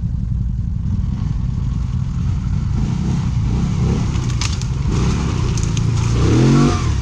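Off-road quad engine running steadily under way with a low rumble, with a few sharp clicks over it in the second half. Near the end the engine's pitch swells up and back down in a short rev, the loudest moment.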